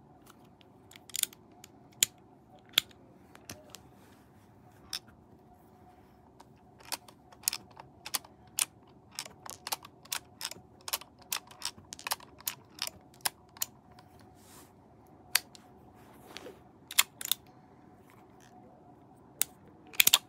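Sharp, irregular metallic clicks from an Umarex Colt Peacemaker BB revolver being worked by hand: the cylinder clicking round and cartridge shells being handled. The clicks come thickest in the middle, with a loud cluster near the end, over a faint steady hum.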